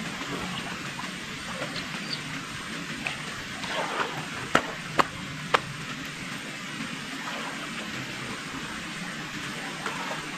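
Muddy pond water stirring softly around a person crawling chest-deep through it, over a steady outdoor hiss, with three sharp clicks about halfway through.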